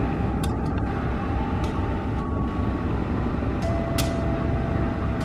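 Diesel-electric locomotive and its passenger train rolling slowly past: a steady low engine and wheel rumble, with a few sharp clicks.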